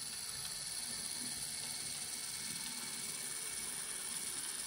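Geared drive of a Rivarossi model Heisler locomotive running along the track: a steady mechanical whirr of its gears, with thin high tones held throughout.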